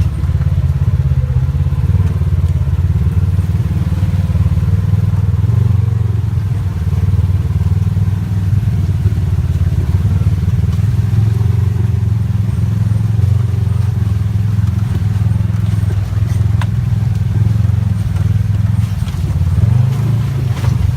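ATV engine running steadily under way, a loud low drone with a few light knocks near the end.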